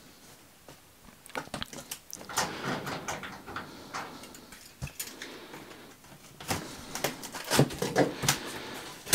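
Cardboard box being handled and opened: scraping and rubbing with many small clicks and knocks, busiest in two spells, about two to three and a half seconds in and again from six and a half to eight and a half seconds.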